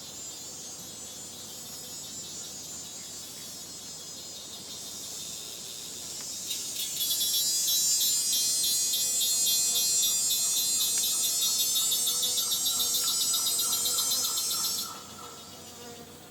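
Tropical rainforest insects buzzing in a high-pitched chorus that swells loud about seven seconds in and stops abruptly near the end. A fainter, lower pulsing call runs under it in the second half.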